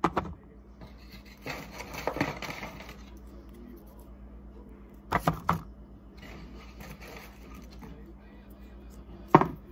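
Close-up ASMR handling of Valentine's sweets and their packaging. A sharp tap comes first, then a stretch of scratchy rustling, two quick taps in the middle and a last sharp tap near the end.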